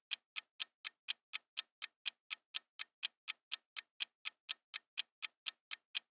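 Clock-ticking sound effect, short crisp ticks at about four a second, counting down the time to answer a quiz question.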